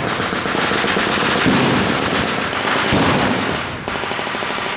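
Blank-firing machine-gun and rifle fire, the shots overlapping into a continuous crackle with a sharper crack about three seconds in. The firing eases off near the end.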